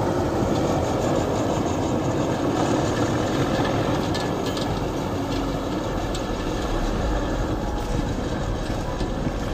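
Kirovets K-701 tractor's diesel engine running under load as it ploughs snow with its front blade, a steady heavy mechanical noise that eases slightly as the tractor moves away.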